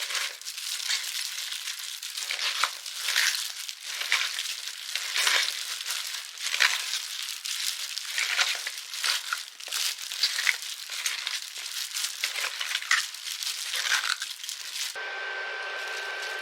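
Irregular crinkling and crackling with many sharp little snaps, stopping abruptly about fifteen seconds in, when a steady hum with a high whine begins.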